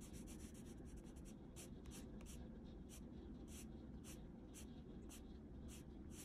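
Coloured pencil scratching across paper: quick back-and-forth shading strokes for about the first second, then slower separate strokes, about two or three a second.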